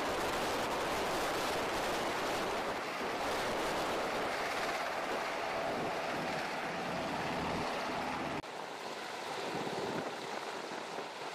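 UH-60 Black Hawk helicopter hovering close by: a steady roar of rotor noise and downwash buffeting the microphone. A little past eight seconds in it cuts abruptly to a quieter roar with much less low rumble.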